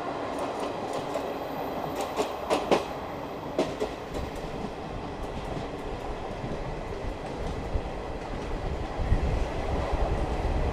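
ICF passenger coaches running at speed on the track: a steady rolling rumble of wheels on rail. A few sharp clicks of the wheels passing rail joints come about two to four seconds in, and the low rumble swells near the end.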